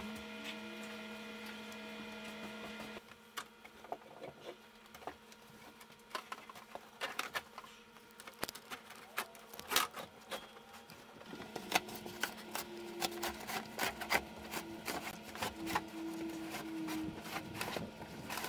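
47-year-old carpet being pulled up, cut and rolled, giving scattered crackles and snaps as it tears loose. A steady hum runs for about the first three seconds, then stops.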